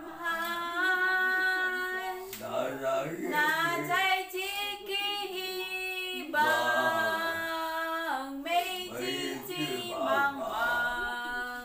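A woman singing a simple Taiwanese song unaccompanied, in long held notes with short breaks between phrases.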